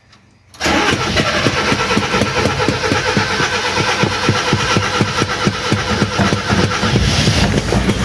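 Starter motor cranking the Mazda B1800's carburetted four-cylinder petrol engine. It kicks in about half a second in and turns the engine over steadily, with a regular beat of four to five pulses a second, without catching: the engine will not start after a year parked, even on fresh petrol.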